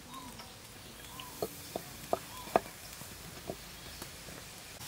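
Cooking utensils clinking: a spoon and spatula knock several times against a glass jar and a metal wok as fat is spooned out for frying, about five sharp clicks with the loudest about two and a half seconds in.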